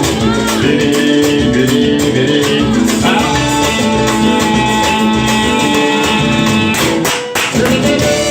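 Samba music playing loudly, with percussion and plucked strings in a steady rhythm, briefly dropping out about seven seconds in.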